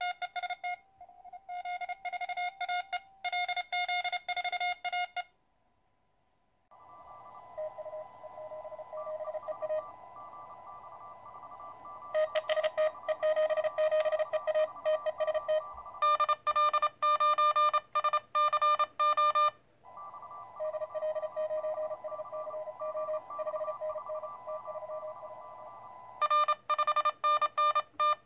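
Morse code (CW) beeps from a QRP Labs QCX+ CW transceiver's small speaker: runs of keyed dits and dahs in a single steady pitch, from about 7 s on over a steady band of receiver hiss. The loudest runs come near the middle and near the end, while the Morse paddle is being keyed.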